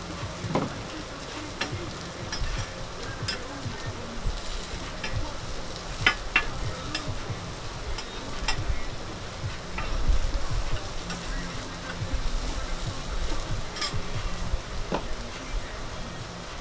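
Cubed beef steak sizzling on a hot steel griddle, a steady frying hiss with scattered sharp clicks throughout.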